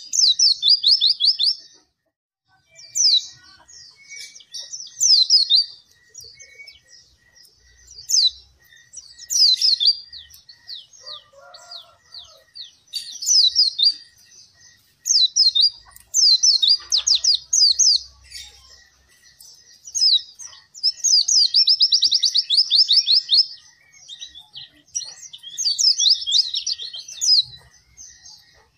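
White-eye (pleci) singing vigorously. The song comes in high-pitched bursts of rapid chattering trills and quick sweeping notes, each a second or two long, with short pauses between.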